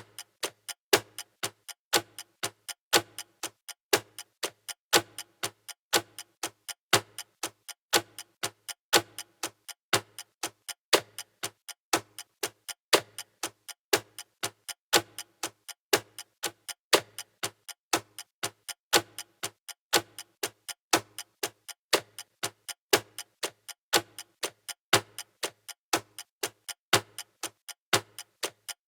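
Clock-ticking countdown sound effect: fast, evenly spaced ticks with a louder tick once each second.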